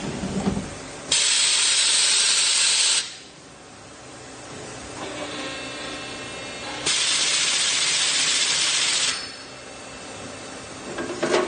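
Compressed-air blow-off inside a CNC lathe: two loud hissing blasts of about two seconds each, starting and stopping abruptly, a few seconds apart. Between them the machine runs with a faint steady whine, and a brief metallic clatter comes near the end.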